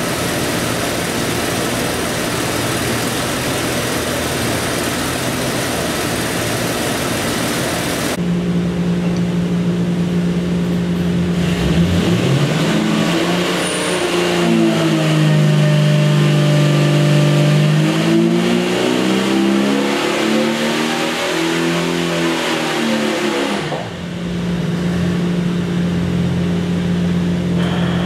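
A 4.6-litre Jeep stroker inline-six running on an engine dyno. After a steady stretch, it makes a pull from about eleven seconds in: the engine note climbs in pitch and then drops back, settling to steady running again near the end.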